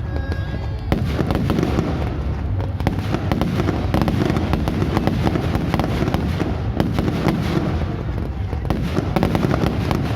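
Fireworks going off in quick succession, a dense crackle of many bursts that starts about a second in and keeps going.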